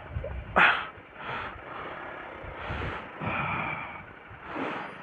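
A person breathing heavily close to a helmet-mounted microphone: about five short puffs of breath spread over a few seconds, over a faint low rumble.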